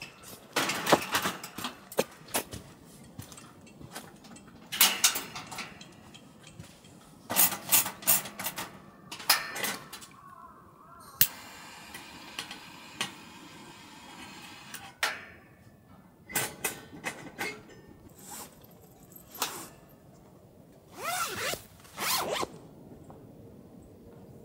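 Zippers being pulled in short runs, among the rustling and clacking of camping gear being handled.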